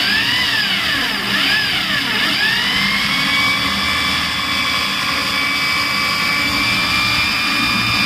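Corded hammer drill running in plain rotary drilling mode, with the hammer action switched off, as its bit bores into a block of wood. The motor whine wavers in pitch for the first couple of seconds as the bit bites, then holds steady.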